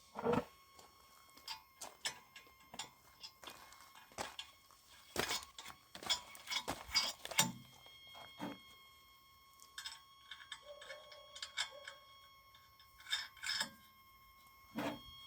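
Irregular light clicks and knocks from the homemade log-splitter and beer-can crusher and the metal handled around it, over a faint steady tone. The clicks bunch together about five to seven seconds in and again near the end.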